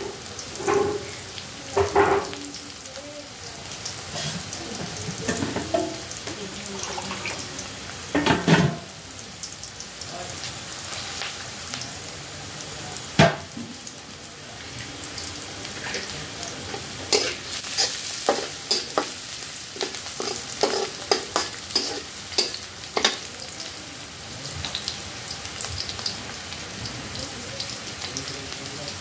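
Rice and vegetables sizzling in a metal wok as they are stir-fried, with a metal spatula scraping and tapping against the pan. One sharp knock of the spatula on the wok comes about halfway through.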